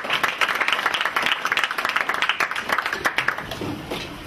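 A small audience applauding, many quick overlapping hand claps that thin out and die away near the end.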